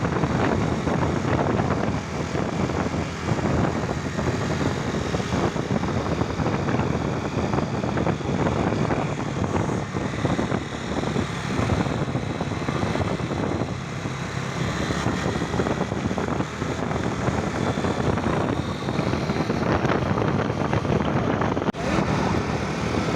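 Loud, steady roar of heavy road traffic, with no horn tune standing out.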